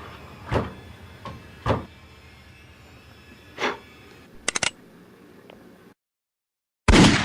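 Heavy knocks or bangs on a door, spaced a second or two apart, then a quick rattle of clicks; after a moment of dead silence a sudden loud bang rings out near the end and fades slowly.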